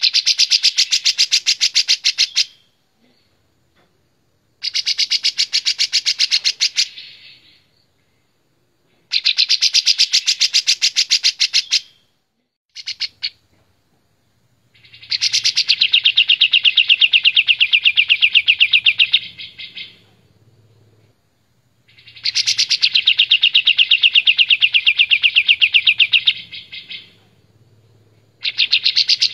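Kapas tembak bulbul singing loud, rapid trilling phrases, each two to five seconds long, in about six bouts separated by short pauses, with a brief pair of notes in the middle.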